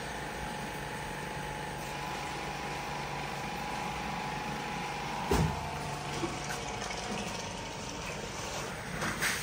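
A steady mechanical hum with a hiss underneath, holding one level throughout, and a single sharp knock about five seconds in.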